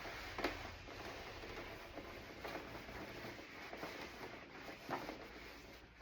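Faint scratchy rubbing with a few light knocks, as of hands working over a plastic door panel.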